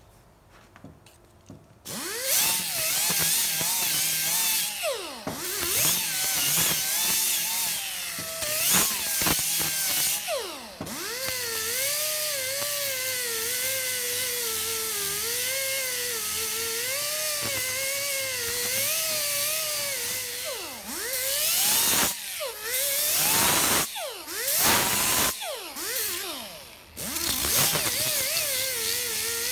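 Small pneumatic right-angle grinder with a 3-inch abrasive disc starting about two seconds in and grinding a metal casting, a steady hiss under a whine that rises and dips as the disc is pressed on. In the last third it lets off and picks up again several times.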